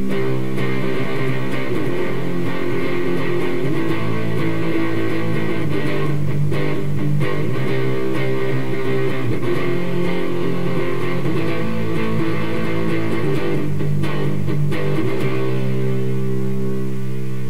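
Electric guitar played through a SupaSixties Tone Bender Deluxe fuzz pedal, distorted chords and riffs, with a chord left ringing near the end.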